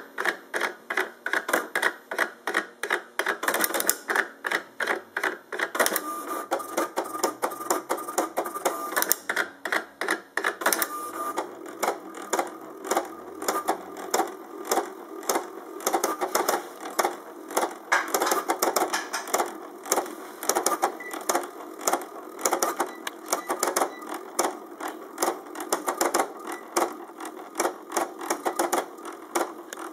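HP7475A pen plotter running its built-in test plot: rapid, uneven clicking and whirring as the pen carriage and paper drive dart back and forth drawing hatched fill and lettering, with a steady whine for a few seconds partway through.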